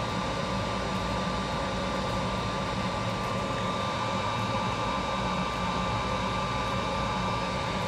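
Steady background hiss and hum with a constant thin high whine, unchanging throughout: the workbench's room noise, with no distinct event.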